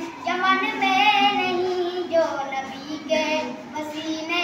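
A boy singing a naat, an Urdu devotional poem in praise of the Prophet, solo in long, bending sung phrases.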